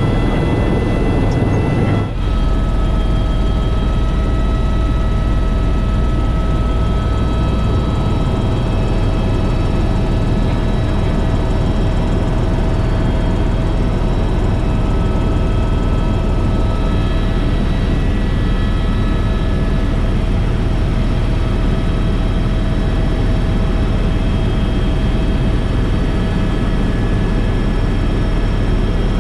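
Helicopter in flight: a steady, loud drone of rotor and turbine with a high whine over a deep rumble. There is a brief dip about two seconds in.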